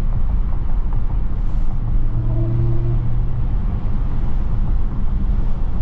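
Dodge Charger Hellcat's supercharged 6.2-litre V8 running at a steady cruise, heard from inside the cabin as a low steady rumble mixed with road and tyre noise. The engine note firms up briefly about two seconds in.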